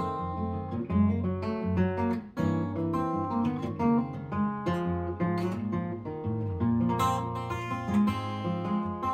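Solo acoustic guitar playing an instrumental passage with no singing: picked notes over a moving bass line.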